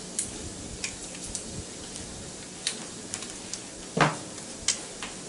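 Bacon sizzling and popping in a Copper Chef square pan, with tongs clicking against the pan as the strips are turned. A louder knock about four seconds in is the loudest sound.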